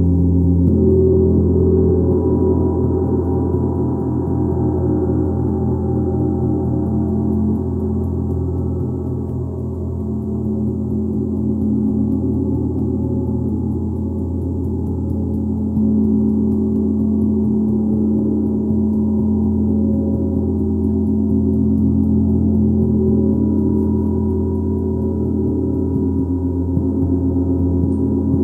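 A gong resonating continuously in a dense wash of many overlapping low tones, played without a break. It swells slightly a little over halfway through.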